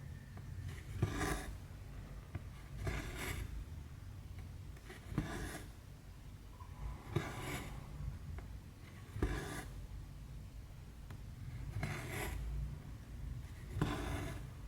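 Cross-stitch thread drawn through 14-count canvas, one short rubbing pull about every two seconds, seven in all.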